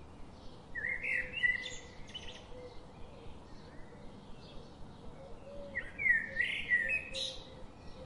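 Budgie chirping: two short bursts of quick chirps with rising and falling notes, about a second in and again about six seconds in.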